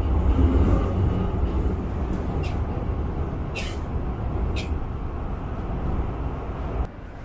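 Metro train running, heard from inside the passenger car: a steady low rumble with a few faint clicks, dropping off suddenly near the end.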